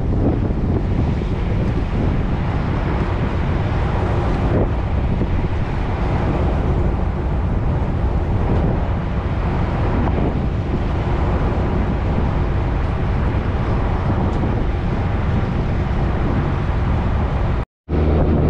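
A small passenger ferry under way: the steady low running of its engine and the rush of water, with wind buffeting the microphone. The sound breaks off for a moment near the end.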